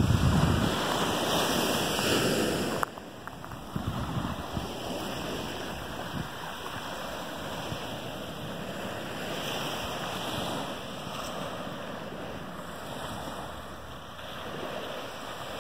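Small ocean surf washing steadily up the beach, swelling a little now and then. Wind rumbles on the microphone for the first three seconds, then cuts off suddenly.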